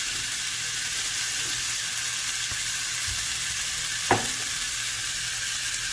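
A 40-ounce bone-in ribeye sizzling steadily on a hot stovetop grill pan as it starts to sear. One short tap is heard about four seconds in.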